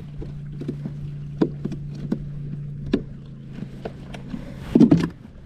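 Scattered knocks and taps of gear being handled on a kayak, with a louder cluster of knocks near the end, over a steady low hum.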